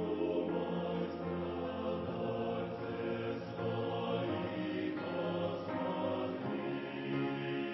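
Choir singing a hymn in long held chords.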